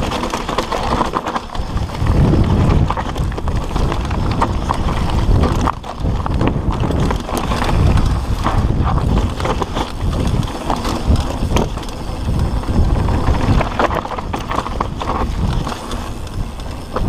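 Mountain bike rolling fast down rough, rocky singletrack: tyres crunching over loose stones while the chain and frame rattle, with many small clicks and knocks over a steady low rumble.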